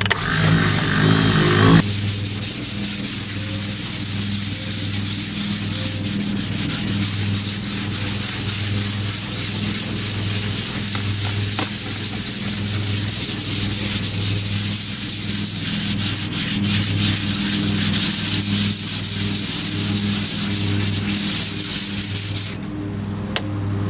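Fine-grit sandpaper dry-sanding a car's clear coat by hand to knock down orange peel: a continuous scratchy rubbing of steady strokes over a faint low hum, stopping abruptly near the end.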